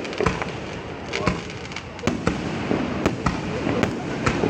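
Fireworks being launched and bursting: an irregular run of sharp bangs, about two a second, over a continuous crackling hiss.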